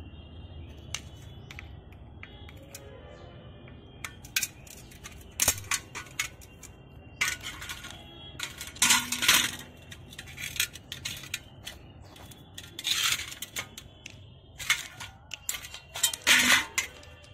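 Metal carburetor parts clinking and tapping against a steel pan as the carburetor is taken apart by hand: irregular sharp clinks throughout, with a few louder bursts of rattling.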